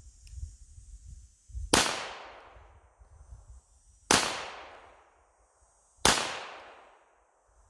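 Three single shots from a Makarov 9x18 pistol firing Wolf 94-grain steel-case full-metal-jacket rounds, about two seconds apart, each followed by an echo that fades over a second or more.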